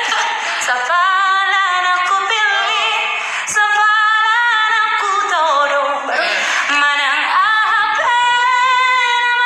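A woman singing solo without accompaniment, with long held notes that waver in pitch.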